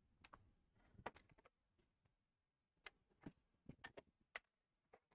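Faint, scattered clicks and light taps of small parts and objects being moved about on a workbench during a search for spare connectors, with near silence between them.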